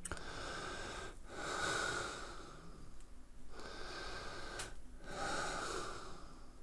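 A person breathing audibly through the nose close to the microphone: several breaths in and out, each a soft hiss lasting about a second, with short pauses between them.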